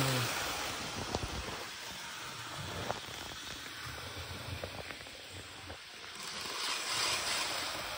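Model train running on the track: a steady rushing hiss with a few sharp clicks, growing louder about six seconds in.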